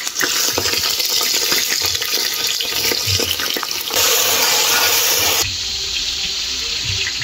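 Buffalo leg pieces sizzling in hot oil and onions in an aluminium pressure cooker, with small knocks as pieces are dropped in. The sizzle grows louder for a second or so about four seconds in, then drops off suddenly.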